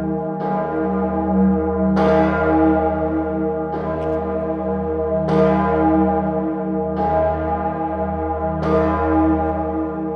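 The Salvator bell, the great bronze bell of Salzburg Cathedral tuned to E-flat and cast in 1961 by Oberascher, swings alone. Its clapper strikes about every second and a half over a deep hum that rings on between strokes.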